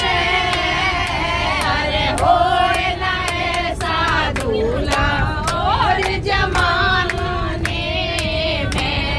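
Group of women singing a Hindi devotional wedding song (bhajan) together, with hand claps keeping time and a low rumble of the bus underneath.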